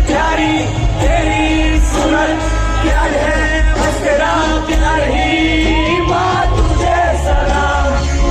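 Live stage music with a singer's voice over a loud sound system, on a heavy, steady bass.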